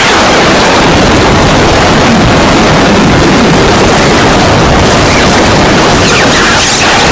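Harsh noise music from turntables played through a DJ mixer: a dense, very loud wall of distorted noise, with a few quick pitch glides near the end.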